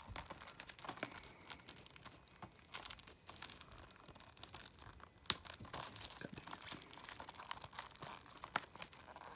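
Plastic shrink wrap on a Blu-ray case crinkling and tearing as it is worked at to get it open, with many small irregular clicks, the sharpest about five seconds in.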